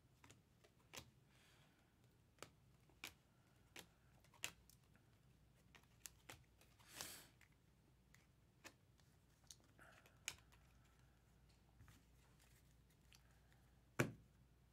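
Faint, scattered clicks and snaps of thick chrome trading cards being flipped through in the hand and set down on piles, with a brief swish about seven seconds in and a sharper tap near the end.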